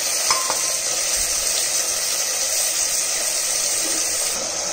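Steady frying hiss from chicken pieces, shallots and curry leaves cooking in oil in a pressure cooker while being stirred with a wooden spatula.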